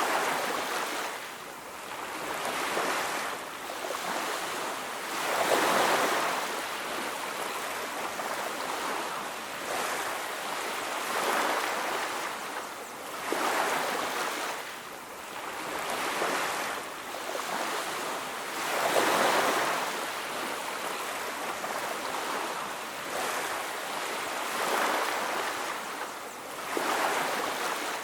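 Sea waves washing onto a beach, a steady rush of surf that swells and falls back every few seconds.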